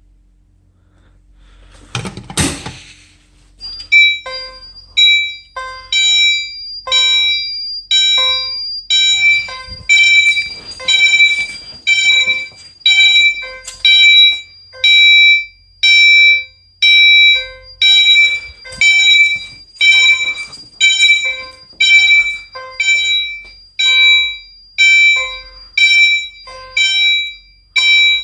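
Fire alarm notification appliance switched on with a sharp click about two seconds in, then sounding loud, pulsed tones at about one pulse a second.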